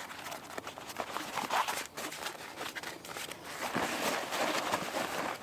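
Cloth and canvas rustling and rubbing as a fabric bundle is pushed down into a canvas rucksack, with scattered small knocks and clicks.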